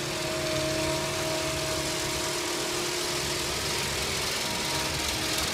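Engine of a Conver C10s self-propelled ditch cleaner running steadily, with a constant hum and a hiss, while its hydraulic arms and mowing heads work.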